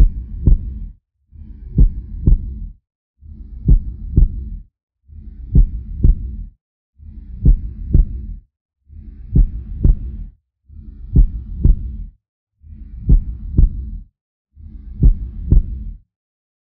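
A slow heartbeat sound: a double thump, lub-dub, repeating evenly about every two seconds, about nine beats, stopping just before the end.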